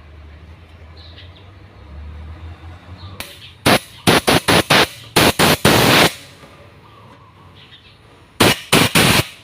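Short, loud blasts of compressed air from a blow gun: a quick run of about seven spurts and one longer blast, then three or four more spurts near the end.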